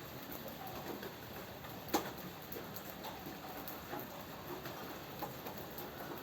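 Rain falling steadily, with scattered individual drops tapping irregularly and one louder drop about two seconds in.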